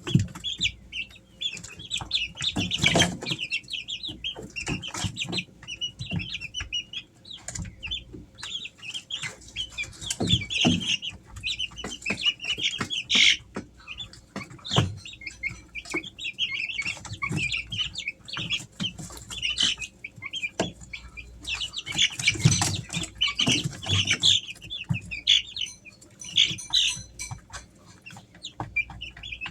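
A brood of three-week-old Easter Egger chicks peeping without a break, many short high cheeps overlapping. Scattered taps and soft thumps from the chicks moving about run among the peeps.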